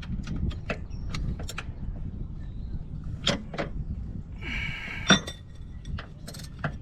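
Scattered metallic clicks and knocks of hands and tools working under a car, with a short scrape about four and a half seconds in and a sharp knock just after it, over a steady low rumble.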